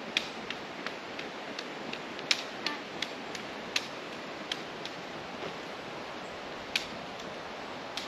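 Footsteps on a stony hill path going downhill: irregular sharp taps, two or three a second at first and sparser after about four seconds in, over a steady hiss.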